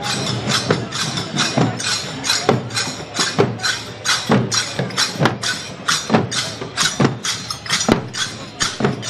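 Brass percussion struck with sticks in a steady, even beat of about two strokes a second, each stroke bright and ringing, over crowd noise.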